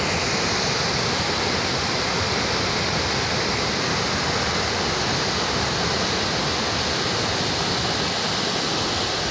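Small waterfall cascading over rocks, a steady, even rushing of water.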